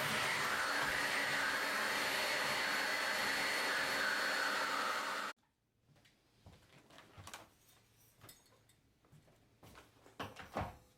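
Vacuum cleaner running steadily with a faint high whine, stopping abruptly about five seconds in, followed by a few soft knocks and rustles of handling.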